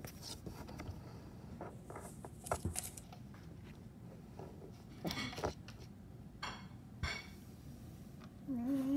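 Kitten's claws scratching and scraping at carpet and a door edge in a few scattered short bursts. A brief wavering voice sound comes near the end.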